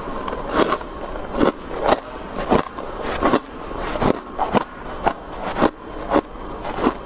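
Freezer frost being bitten and chewed, repeated crisp crunches about two a second.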